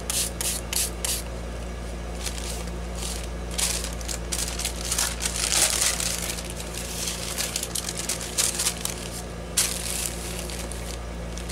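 Sheets of waxed deli paper crinkling and rustling as they are handled and pressed flat by hand onto a painted stencil. There is a quick run of crinkles at the start, a longer rustle midway and another near the end.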